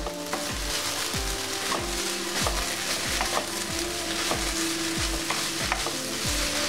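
Toor dal and moringa leaves sizzling as they fry on high flame in a kadai, stirred with a spatula. Background music with a steady beat runs underneath.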